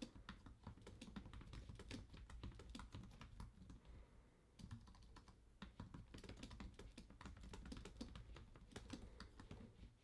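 Faint, fast typing on an Anker slim solar wireless keyboard: a quick run of key clicks with two short breaks about four and a half and five and a half seconds in, stopping just before the end.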